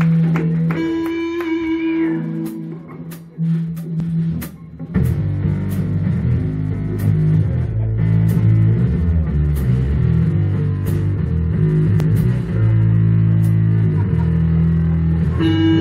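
Live indie rock band with two electric guitars, bass guitar and drum kit. It opens with a few sparse guitar and bass notes, then about five seconds in the drums and full band come in and play on loud and steady.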